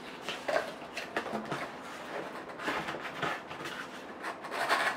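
Cardboard box being opened by hand: irregular scrapes and rustles as its flaps and a flat cardboard insert are pulled out and rub against each other.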